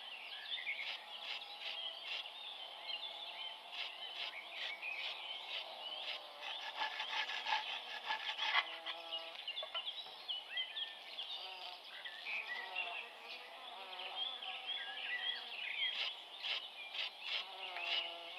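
Several small birds chirping and twittering at once, with scattered light knocks.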